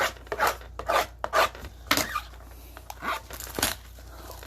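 Short rasping scrapes on cardboard and wrapping, about two a second with a brief pause in the middle, as a sealed trading-card box is worked open.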